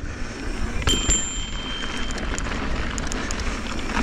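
Mountain bike riding fast over a pump track: wind rushing over the action-camera microphone and the tyres rolling on concrete, then dirt, with scattered small rattles and clicks. A thin high whine sounds for about a second and a half, starting about a second in.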